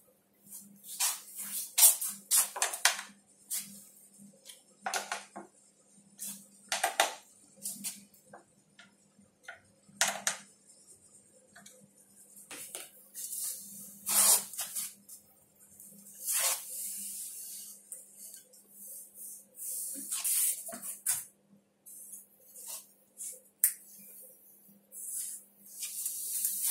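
Irregular knocks and clicks of solid-wood monitor stand parts being handled and fitted together, with stretches of scraping as wood slides over the board table.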